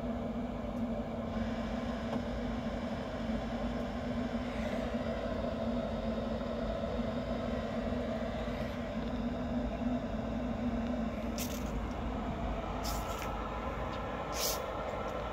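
Grilla Silverbac pellet grill running at startup: its motors give a steady mechanical hum, and the lower hum drops away about eleven seconds in. A few short hisses or scrapes follow near the end.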